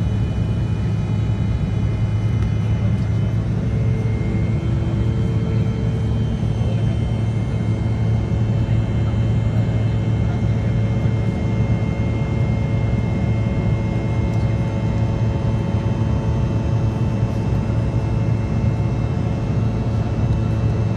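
Airliner cabin noise during the climb after takeoff: the jet engines and rushing air make a steady drone with a strong low hum. A few faint steady whining tones sit above it, some starting about four seconds in.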